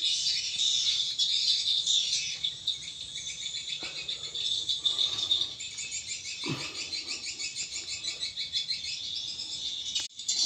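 Swiftlets twittering: a dense, continuous high chirping, with two soft knocks in the middle.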